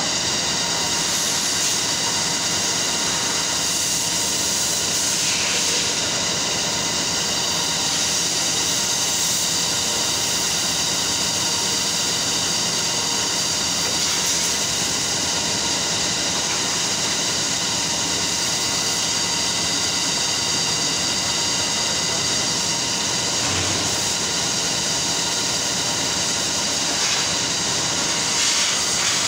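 Carding machine and the surrounding spinning-mill machinery running steadily: a constant loud mechanical hiss with several fixed high whining tones, not changing in speed.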